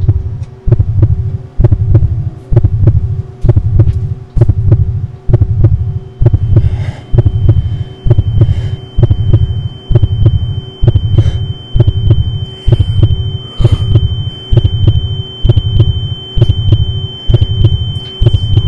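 Heartbeat sound effect in the film's sound design: a heavy, low heartbeat thumps about once a second over a steady droning hum. A thin, high ringing tone joins about six seconds in and holds steady.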